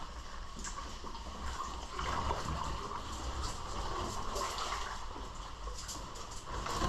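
Legs wading through a knee-deep pool of muddy water: water sloshing and swishing, with a few faint clicks.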